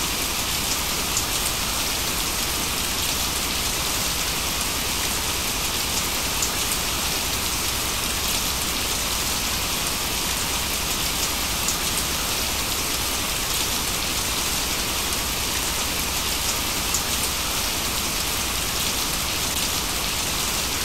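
Steady rain with faint scattered drop ticks, a recorded rain track used as the cover sound over subliminal affirmations.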